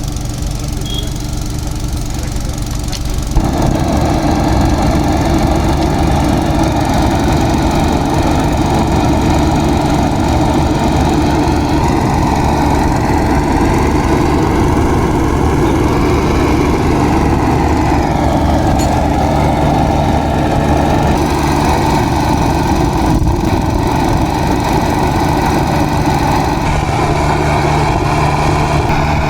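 A small engine running steadily. About three seconds in, a loud, even rushing noise starts abruptly and carries on over it.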